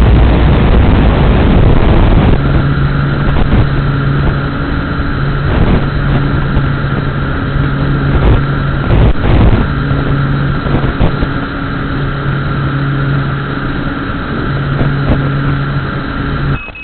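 FPV quadcopter's motors and propellers running at steady throttle, heard through the onboard camera, with a steady hum and wind rushing over the microphone. The sound drops off suddenly near the end.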